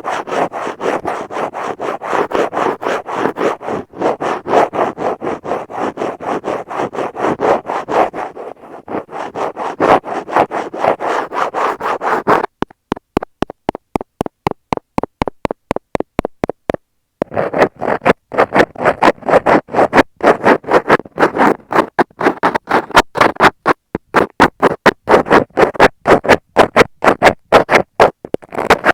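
Close, loud scratching of a stainless steel ear pick on an Apple wired earphone microphone stuck to a wall. About twelve seconds in, it changes to tweezers: first a run of evenly spaced sharp clicks, then a short pause, then quick repeated scratching strokes.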